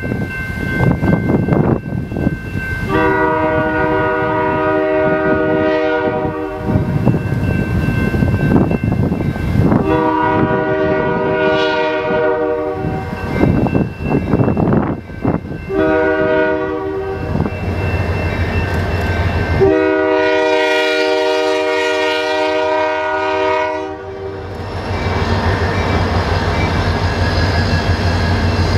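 Diesel freight locomotive horn sounding the grade-crossing signal, long, long, short, long, over a steady ringing crossing bell. After the last long blast, the diesel locomotives rumble past.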